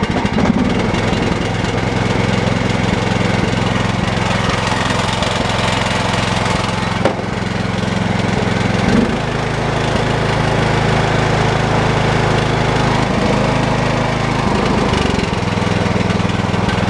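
Cub Cadet 1018 lawn tractor engine running steadily, shortly after a replacement starter solenoid got it going again. Its note shifts about halfway through and again near the end, and there is a single click near the middle.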